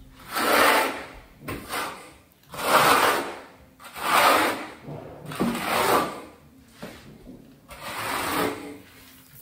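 Trowel scraping in about six long strokes, spreading thin-set mortar across the wall for Kerdi membrane.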